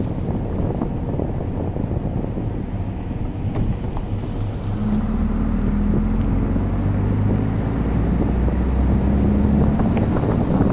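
Car driving, with a steady low rumble of road and wind noise buffeting the microphone. About halfway in, a steady engine hum joins as the car drives along the asphalt road, and the sound grows slightly louder.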